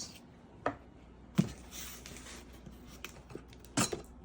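A few sharp clicks and taps of a Samsung foldable flip phone being handled: a light one, a louder one about a second and a half in, and two close together near the end.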